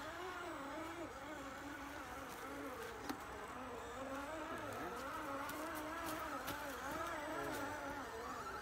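Electric motor and gearbox whine of a radio-controlled scale crawler truck with a Land Rover Defender body, its pitch rising and falling as the throttle is worked climbing a steep dirt trail. A single sharp click about three seconds in.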